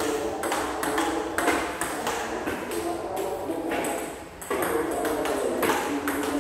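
Table tennis ball clicking in a rally, a quick run of sharp ticks as it strikes the bats and bounces on the table. The clicks break off a little after four seconds in, then start again.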